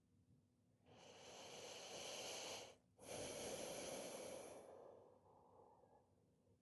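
A person's slow, deep audible breath: a long inhale, a brief pause, then a long exhale that fades out.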